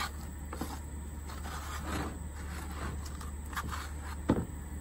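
Scattered rustling and scraping as compost material is handled in a plastic bucket, with one sharp knock about four seconds in, over a steady low hum.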